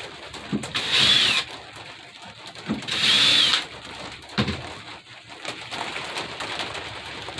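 Cordless drill with a self-centering (center-finding) bit pre-drilling pilot holes through a pegboard jig into the bench top: two short bursts about a second and about three seconds in, the motor whining up and back down each time. A knock follows a little after four seconds.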